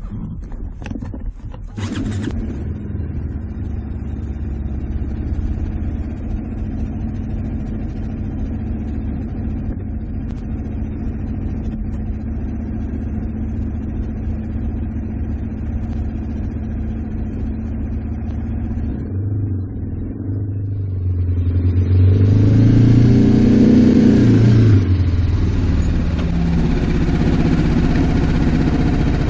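BMW G310R motorcycle's single-cylinder engine running steadily at low revs, with a few knocks in the first two seconds. About two-thirds of the way through, it revs up and gets louder as the bike pulls away, then keeps running at the higher level.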